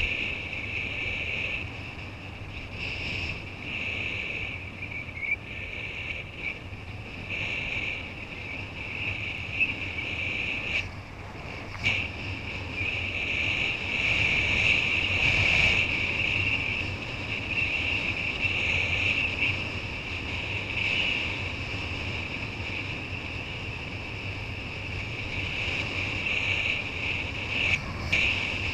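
Wind rushing over the action camera's microphone, mixed with water hissing and slapping under a kiteboard riding at speed. It is a steady rushing noise that swells and fades and is loudest about halfway through.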